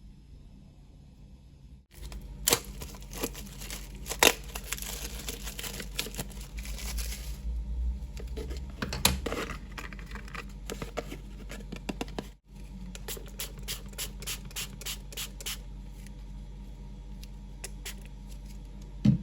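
Close-up handling of art materials: scratchy scraping and rustling with many sharp clicks and taps, broken by two abrupt cuts.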